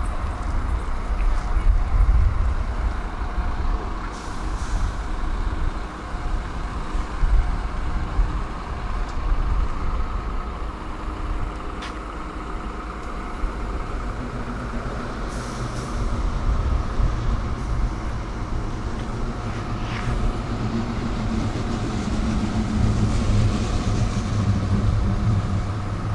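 Tram running on the rails with a steady low rumble and an electric motor hum. Brief hisses come a few times, and there are two sharp clicks.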